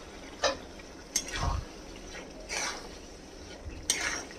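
Metal spatula stirring minced mutton in a steel kadai: several short scrapes and knocks of metal against the pan.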